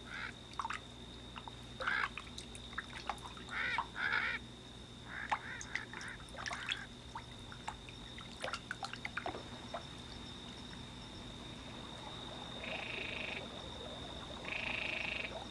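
Frogs calling in short, scattered bursts, then two longer trilling calls near the end, with light trickling and splashing water. A thin, steady high whine sits underneath.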